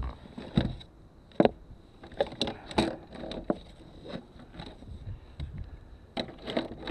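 Handling noise close to a chest-mounted camera: irregular light clicks, knocks and rustles as the wearer shifts about in the boat.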